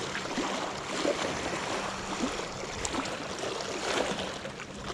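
Small waves lapping and washing over a rocky lakeshore, with a few short splashes and knocks.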